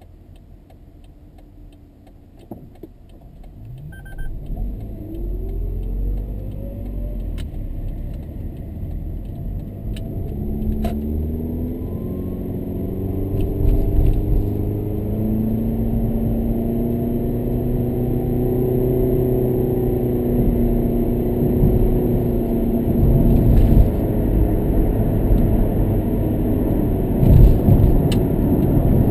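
Toyota Estima Hybrid pulling away from a stop, heard inside the cabin: a whine that rises in pitch as the car gets moving, then a steady drone with road rumble that grows louder as it gathers speed.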